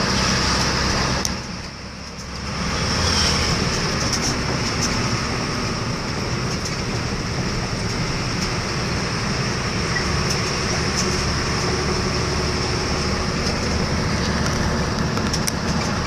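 Steady running noise of a vehicle driving along a paved road, engine and tyre noise heard from inside it, dipping briefly about two seconds in.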